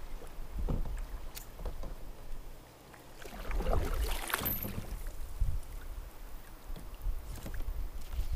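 Kayak on the river: paddle strokes splashing in the water, with a few light knocks against the hull and a louder run of splashing about three to four seconds in.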